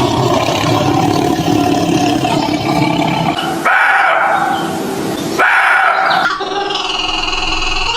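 Dogs barking, in a few short clips spliced one after another with sudden changes about three and a half, five and a half and six seconds in.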